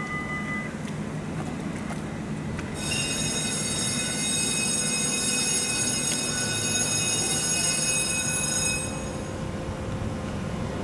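Shrill metallic squeal of railway wheels: a chord of several steady high tones sets in about three seconds in, holds for about six seconds and then stops, over a steady low hum.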